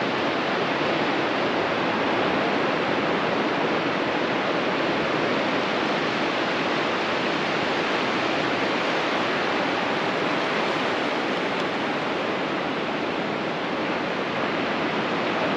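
Ocean surf on a beach: a steady rush of wave noise with no single break standing out.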